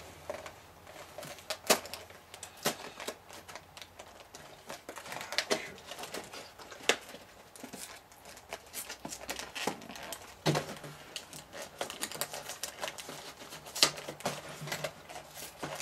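Small cardboard LEGO set box handled and opened by hand: irregular clicks, taps and scrapes of fingers on the card as the sealed top flap is pried and peeled open.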